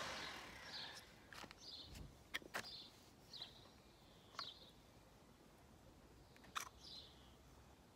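Faint outdoor quiet with distant bird chirps every second or so, and a few sharp small clicks of a screwdriver on the plastic oil filter housing cap as the old O-ring is prised off.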